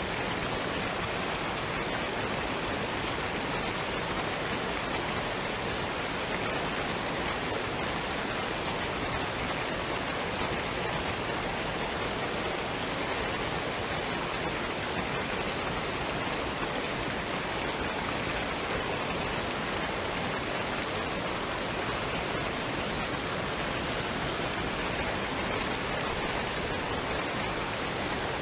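Waterfall and stream water running in a steady, even rush with no breaks or changes.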